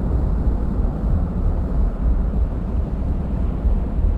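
Submarine running submerged: a steady, deep rumble with no distinct events.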